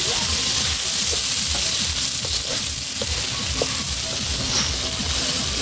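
Cut water lily stems and chicken liver sizzling steadily in hot oil and spices in an iron wok, with the scrape and knock of a spatula stirring them.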